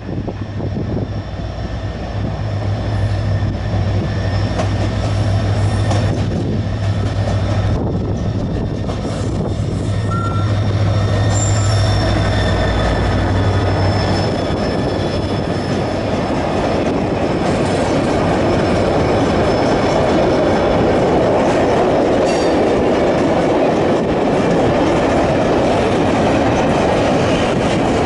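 GT22 diesel-electric freight locomotive passing close with a steady low engine drone for about the first half. Then its train of hopper wagons rolls by with a continuous rumbling wheel noise and faint high wheel squeals.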